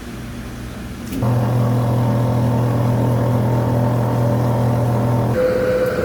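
A machine's electric motor humming steadily: it switches on abruptly about a second in and cuts off shortly before the end, giving way to a steady higher-pitched whine.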